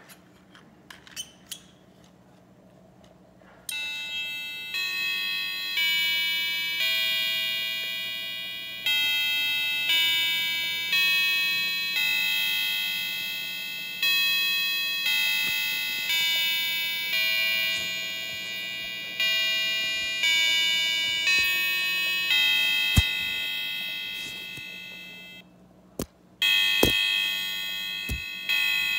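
Quartz chime clock movement playing its chime tune: a run of electronic bell-like notes, about one a second, each ringing out and fading, starting a few seconds in. Near the end the notes break off briefly, then a new note sounds, with a few sharp clicks around it.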